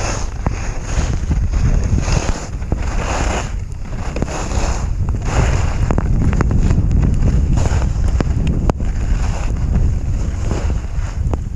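Strong wind buffeting the microphone during a descent through a blizzard, a heavy low rumble throughout. Over it, a hiss swells and fades roughly every second or two, like turns carving through snow.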